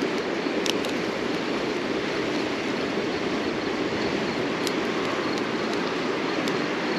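Steady rushing outdoor noise, like running water, with three brief sharp crackles.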